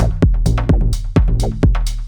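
Electronic background music with a steady drum-machine beat, about four strikes a second, over a sustained bass.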